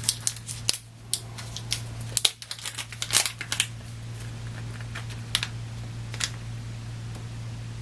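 Plastic packaging bag crinkling and crackling as it is handled and opened, dense sharp crackles for the first few seconds and then only a few scattered clicks. A steady low hum runs underneath.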